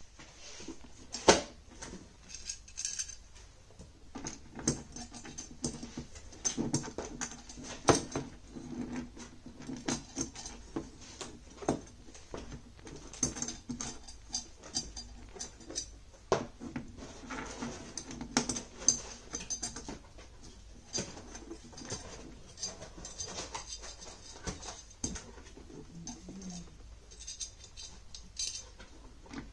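Irregular clicks, knocks and clinks of a monitor mounting bracket's arms and small screws being handled and fitted against the back of a monitor.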